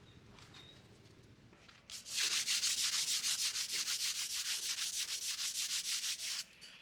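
Wood being hand-sanded with sandpaper in rapid, even back-and-forth strokes, starting about two seconds in and stopping suddenly near the end.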